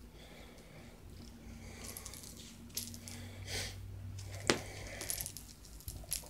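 A cat biting and batting a fuzzy bee toy: scattered light rattling and rustling clicks, with one sharp click a little past halfway.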